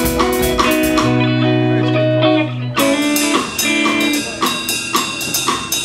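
Live rock band playing an instrumental passage: electric guitar, electric bass and drum kit, with a held low bass note in the middle and steady drum and cymbal hits throughout.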